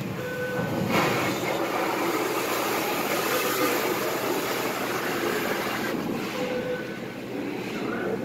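High-pressure water jets from a touch-free car wash gantry spraying over the car, heard from inside the car. The spray noise jumps up sharply about a second in and eases back near the end.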